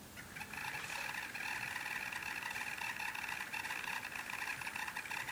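A MacBook Air giving off a steady, high buzzing whir with a fast rough flutter, a noise that sounds like brewing coffee or an angry bee. It is a new fault in a laptop that used to be silent, and shaking it did not cure it. It starts a moment in and stops abruptly near the end.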